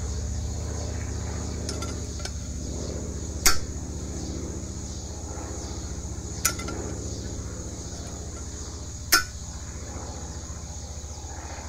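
Pliers clinking against a metal outboard propeller blade while the blade's bent tip is worked straight by hand: three sharp metallic clinks, about three seconds apart, over a steady background of insects buzzing.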